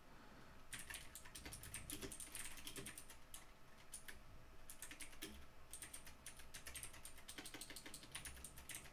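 Faint computer keyboard typing: quick runs of key clicks broken by a couple of short pauses.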